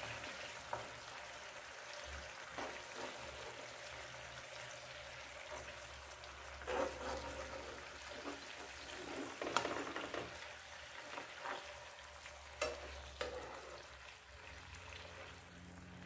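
Marinated fish pieces sizzling in oil in a frying pan on low heat. From about seven to thirteen seconds in, a few sharp scrapes and taps of a spatula against the pan come through as the pieces are turned over. The sizzle thins near the end.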